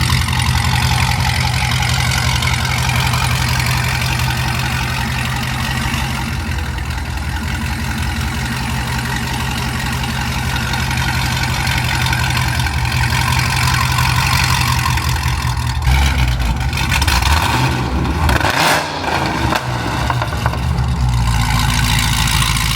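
Supercharged 6.2-litre LSA V8 of a second-generation Cadillac CTS-V, fitted with headers, running at idle. It is revved a few times about two-thirds of the way through.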